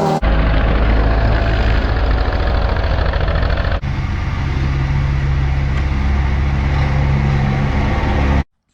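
Hustler X-One zero-turn mower engine running at a steady speed, heard in two edited stretches with an abrupt change about four seconds in; the sound cuts off suddenly near the end.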